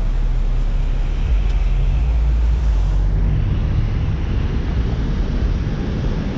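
A car driving through city streets: a steady low rumble of road and engine noise, easing a little about halfway through.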